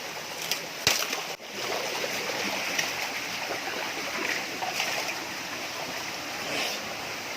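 Waterfall water rushing steadily over rocks, with a sharp click about a second in.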